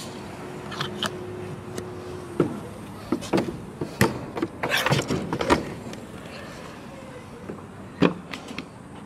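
A run of sharp clicks and knocks around a car, as of a door and fittings being handled, after a steady hum stops about two seconds in.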